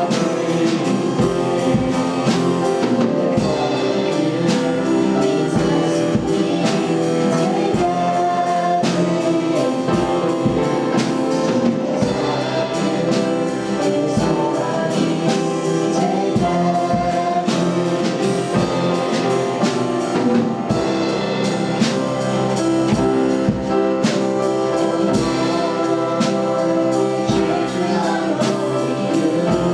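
Worship music: voices singing over a band with a steady beat.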